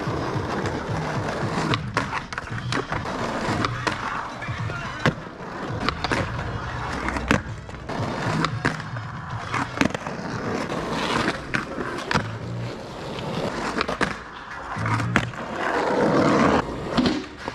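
Skateboard wheels rolling over rough asphalt, with several sharp clacks of the board hitting the ground, over background music with a bass line.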